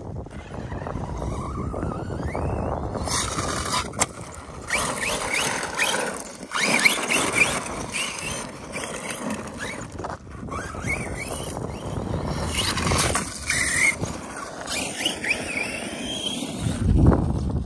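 Arrma Kraton 6S RC truck's brushless electric motor whining, rising and falling in pitch again and again as it accelerates and lets off, with its tyres scrabbling through loose dirt and gravel. A low thump near the end.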